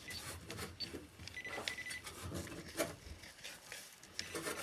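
Metal detector beeping: short high blips and one longer tone of about half a second near the middle, over faint crackling clicks of debris being disturbed.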